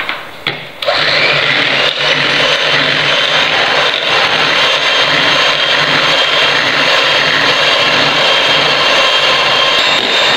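Electric hand mixer switched on about a second in after a few light knocks, then running steadily as its twin beaters whip cold cream in a plastic bowl.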